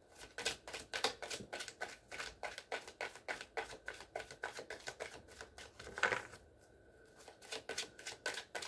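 Tarot cards being shuffled by hand: a fast run of papery card flicks, about five a second, that pauses for about a second late on and then starts again.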